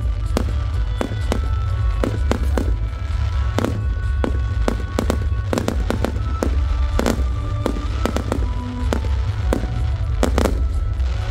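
Fireworks display: rockets and aerial shells going off in a rapid, irregular string of bangs and crackles, over a steady low rumble, with music playing alongside.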